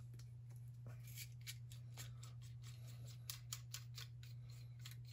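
Faint light clicks and ticks of small metal parts being handled on a workbench, over a steady low hum.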